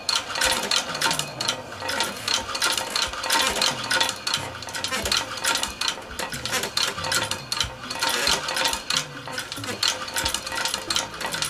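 Restored Pfaff patcher leather sewing machine, treadle-driven, stitching leather: its needle and shuttle mechanism clatter in a rapid, continuous run of metallic clicks.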